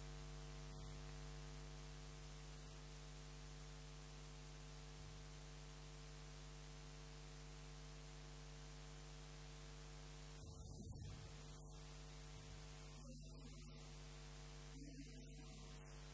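Near silence with a steady electrical hum made of many even tones. A few faint, brief sounds come through about two-thirds of the way in and near the end.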